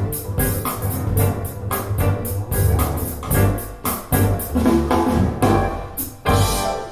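Music led by piano, with drums and a strong bass line, played back through Bowers & Wilkins 707 S2 bookshelf speakers for a listening demo.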